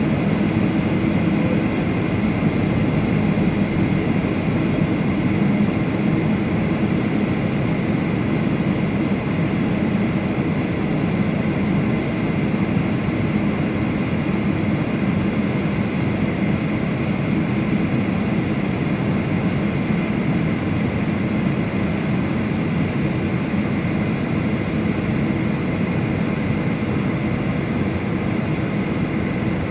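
Steady in-flight cabin noise of a Boeing 737 airliner: the even drone of the jet engines and airflow heard inside the cabin, with a thin steady whine above it.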